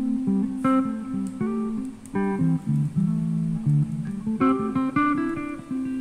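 Background music of plucked guitar notes, played as a string of separate notes.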